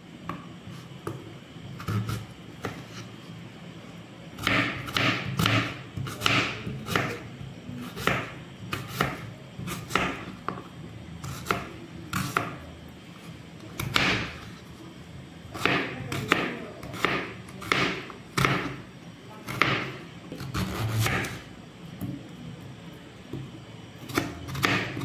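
Knife chopping on a wooden cutting board: irregular, sharp strokes about one or two a second, getting going a few seconds in.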